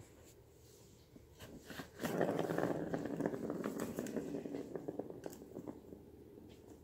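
A kitten's claws scrabbling and scratching on the corrugated cardboard pad of a round scratcher toy. It starts about two seconds in, is loudest for a couple of seconds, then trails off.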